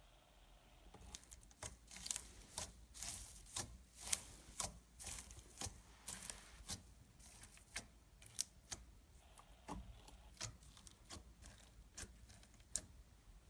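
Hands playing with slime: irregular sticky clicks and pops, several a second, thickest in the first half.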